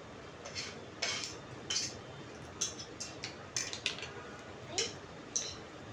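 Eating utensils clinking and scraping against a plate or food container in about a dozen short, irregular clicks.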